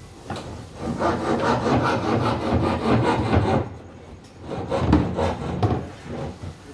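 Female cat in heat making a long, rough, rasping sound that starts about a second in and lasts over two seconds, then a shorter one around five seconds in.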